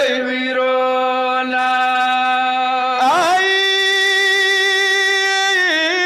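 A male reciter singing a Pashto noha lament unaccompanied. He holds one long note, slides up about three seconds in to a higher note held for a few seconds, then breaks into a wavering ornament near the end.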